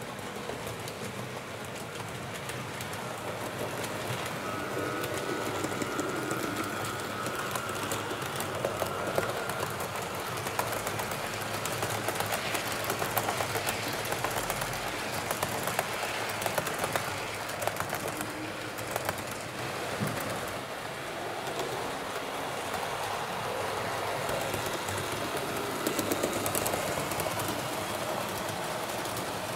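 Roco HO-scale model train, an NS 1100 electric locomotive hauling coaches, running along the layout track with a steady rolling hum and frequent sharp clicks from the wheels on the rails. It is loudest as it passes close by around the middle.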